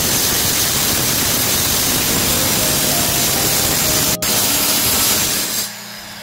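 A power tool runs with a loud, steady hiss. It is cut off for an instant about four seconds in, then stops near the end, leaving soft background music.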